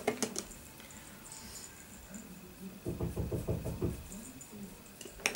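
Sharp plastic clicks from a makeup compact at the start and again near the end. In between comes about a second of rapid, soft, low thuds as an angled fluffy brush picks up bronzer and sweeps it over the cheek.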